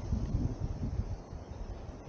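Wind buffeting the microphone: an uneven low rumble in gusts.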